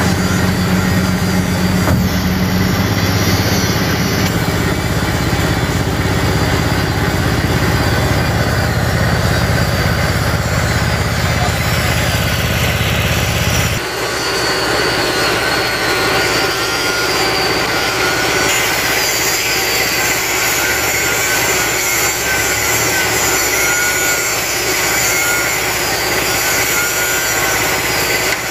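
Case backhoe loader's diesel engine running steadily while its arm holds a slung steel weighbridge plate. About halfway through the deep engine rumble drops away and a higher, wavering whine comes forward.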